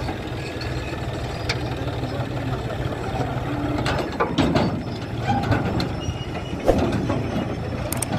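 Diesel engine of heavy earthmoving machinery running steadily, with repeated metallic clanks, knocks and rattles over it.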